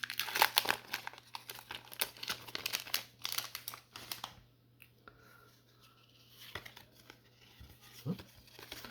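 Foil wrapper of a Pokémon TCG booster pack crinkling and rustling as it is opened and handled: dense crackling for about four seconds, then only faint, occasional rustles.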